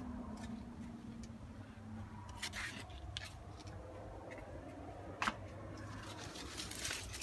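Leaves and stems of a passionfruit vine brushing and rustling as they are pushed aside by hand, with a few brief scrapes and clicks, over a low steady hum.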